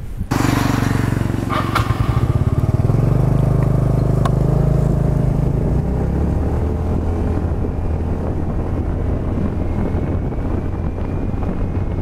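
Motor scooter engine running under way, heard from the rider's seat; the engine note drops to a lower pitch about halfway through.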